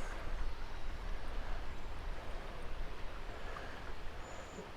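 Wind buffeting the microphone outdoors, an uneven low rumble with no clear events.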